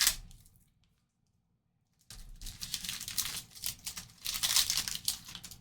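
Foil trading-card pack wrapper crinkling and tearing as it is opened: crackling that dies away within the first second, then after about a second of quiet starts again and continues.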